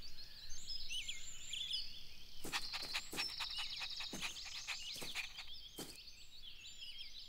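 Songbirds chirping in a garden ambience, many short high calls overlapping, with a brief trill in the middle. Several sharp clicks come between about two and six seconds in.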